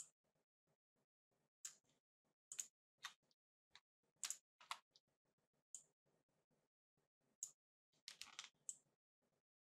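Faint, irregular clicks and taps from working a computer's input device, about a dozen in all, with a short scratchy rustle about eight seconds in.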